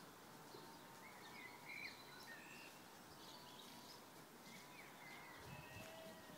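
Near silence, with faint, scattered chirps of small birds.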